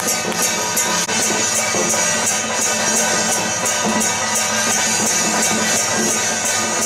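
Upbeat music with a steady beat, a high rattling accent marking about three beats a second, accompanying a troupe's acrobatic routine.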